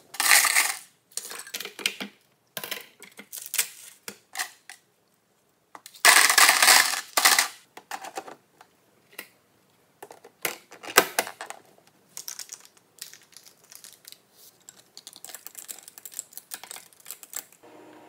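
Kitchen clatter as ceramic dishes and a glass mug are handled and set down on a countertop: scattered clinks and knocks, two louder, longer clatters of about a second each at the start and about six seconds in, and a fast run of light ticks over the last few seconds.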